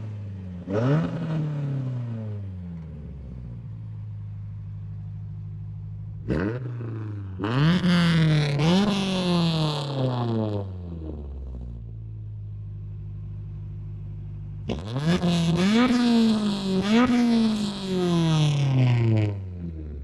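Honda Civic EG's four-cylinder engine revving while stationary: a steady idle broken by sharp throttle blips that fall back to idle, one near the start, several in quick succession around the middle and another run of them near the end. The exhaust leak at its newly replaced headers is fixed, so there is no leak puffing.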